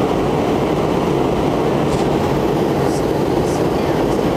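Steady cabin noise of an MD-88 airliner in flight, heard from a passenger seat: the even rumble of its rear-mounted Pratt & Whitney JT8D turbofans blended with airflow over the fuselage.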